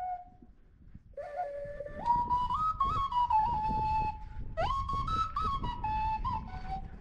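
Clay ocarina playing a slow melody of held, stepped notes. One phrase dies away as it begins, and after about a second's pause a new phrase starts, with a further phrase entering about four and a half seconds in.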